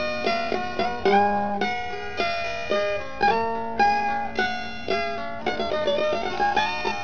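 Instrumental music: a plucked-string melody moving in quick, separate notes.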